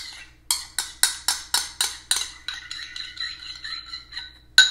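A spoon scraping and knocking thick ranch dressing out of a ceramic bowl: a quick run of clinks, about four a second, then lighter taps with the bowl ringing, and one sharp clink near the end.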